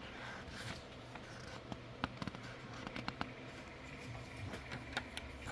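Faint handling noises from a paper picture book being held and its page turned: a soft paper rustle at the start, then scattered small clicks and taps.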